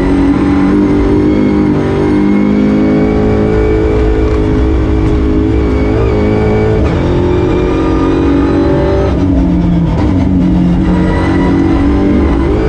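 Golf GTI TCR race car's turbocharged 2.0-litre four-cylinder engine, heard from inside the cabin, running hard at speed. Its pitch breaks about halfway through and drops for a moment about two-thirds of the way in, then climbs again.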